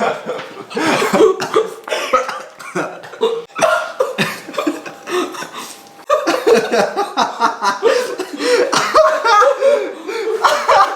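People coughing and laughing as they taste a brownie they find bitter and badly made.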